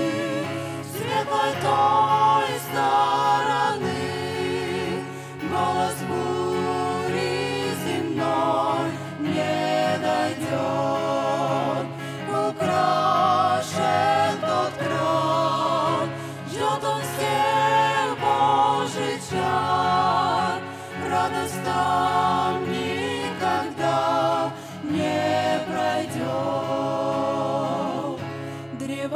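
Small mixed ensemble of men and women singing a hymn in harmony into microphones, over a sustained low accompaniment, with short breaths between phrases.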